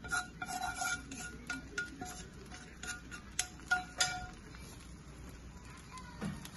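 A metal spatula and skillet clinking and scraping against a pot of fried rice, each knock ringing briefly at the same pitch. The clinks stop about four seconds in, and one soft low thump comes near the end.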